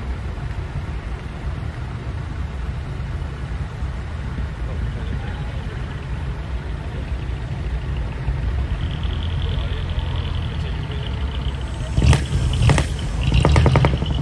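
Truck diesel engines running with a steady low rumble as the decorated trucks pull out. Near the end a steady high tone joins in, followed by several loud, sharp bursts.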